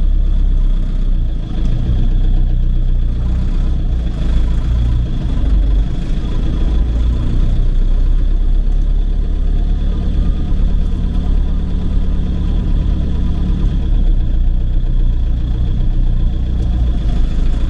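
Tractor engine running steadily under way, with a thin steady high tone above the engine note.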